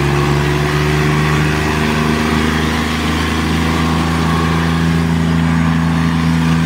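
Swaraj 855 tractor's diesel engine running hard at a steady pitch under the load of a tractor tug-of-war pull.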